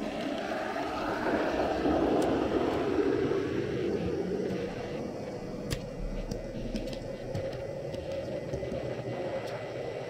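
Model train running along its track, heard close up: a steady motor whir and wheel rumble, a little louder in the first few seconds, with a few sharp clicks over the rails.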